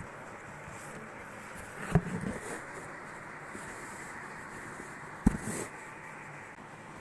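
Two sharp knocks, about two and five seconds in, each followed by a short rustle, over a steady background hiss: objects being handled and set down on a table while the modelling clay is got out.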